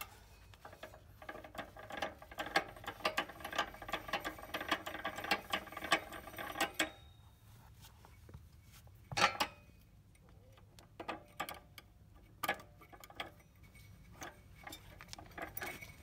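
Drive belt being pulled off a kPulley flywheel trainer's shaft, spinning the mechanism with a rapid clicking whir for about five seconds. Then a single sharp knock and a few scattered clicks as the belt and shaft are handled.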